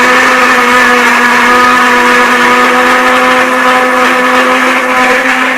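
Electric blender running steadily at full speed, puréeing tomatoes into a paste; a loud, even motor hum that eases slightly near the end.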